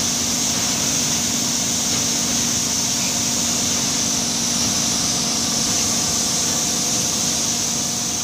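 Oil palm fruit threshing drum running, beating the fruitlets off the bunches: a steady mechanical din with a constant hum and a hiss.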